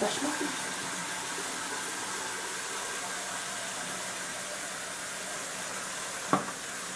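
Bathroom sink tap running, a steady hiss of water into the basin, with a sharp knock about six seconds in.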